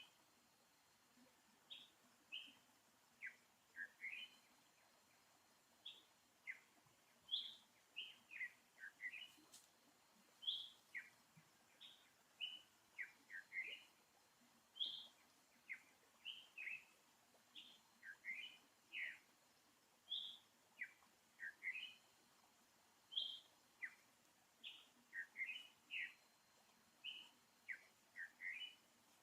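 Birds chirping: many short, high chirps, each dropping in pitch, repeated in quick clusters over a faint steady high hum.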